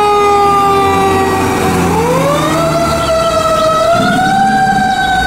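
Fire engine siren wailing: a single loud tone slides slowly down, then rises about two seconds in and holds high.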